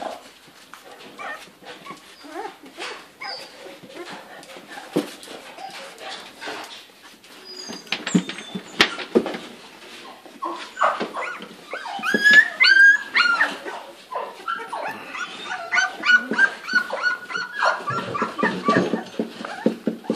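A litter of month-old springer spaniel puppies whimpering and squealing in high, wavering whines, with the scratch and patter of paws on sawdust and wood. The squeals grow more frequent and louder about halfway through.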